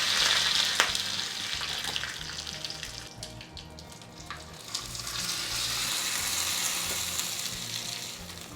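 Tempering of mustard seeds, urad dal, a dry red chilli and curry leaves sizzling in hot oil in a small tempering ladle, with a few sharp pops. The sizzle fades, then swells again about halfway through.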